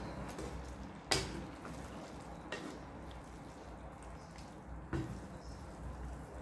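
Spatula stirring and tossing glass noodles and cabbage in a pan of simmering broth, making wet, liquid stirring sounds. Two sharp knocks of the spatula against the pan, about a second in and again near five seconds in.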